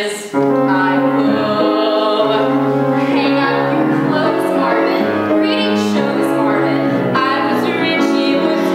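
Women's voices singing a musical-theatre duet over piano accompaniment, held sung notes with no break.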